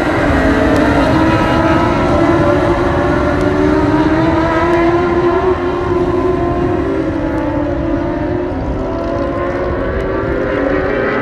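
A pack of dwarf race cars running laps, their motorcycle engines at high revs. Several engine notes overlap, their pitches sliding down and back up as the cars lift and accelerate.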